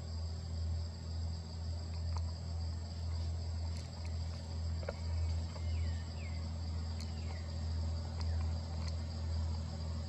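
A steady high-pitched chorus of forest insects over a low steady rumble, with a few scattered faint clicks and some faint falling chirps about midway.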